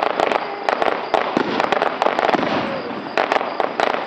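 Fireworks going off in a dense barrage: a rapid, irregular run of sharp bangs and crackles, several per second, with no break.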